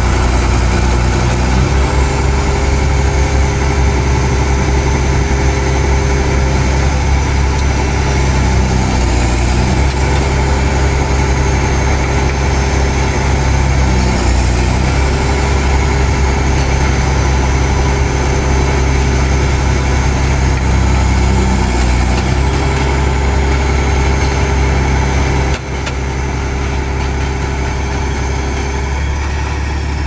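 Hitachi excavator with a hydraulic vibratory pile hammer at work: a loud, steady low drone of the diesel engine and vibrating hammer. About 26 seconds in the level dips briefly, then runs on slightly lower.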